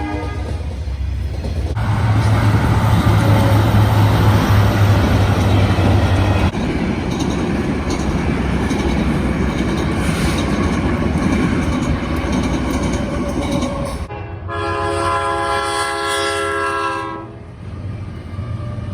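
Diesel freight train running past with heavy engine rumble and rail noise, then a locomotive's multi-tone air horn sounding one long blast of about three seconds near the end.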